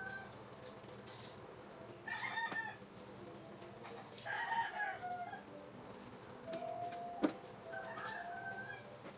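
Distant birds calling: several drawn-out pitched calls, each under a second long, about two, four and a half, seven and eight seconds in. A single sharp knock comes just after seven seconds.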